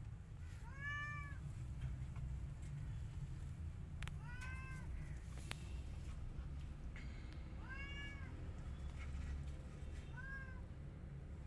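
A kitten meowing four times, short high calls that rise and fall, a few seconds apart, over a low steady rumble.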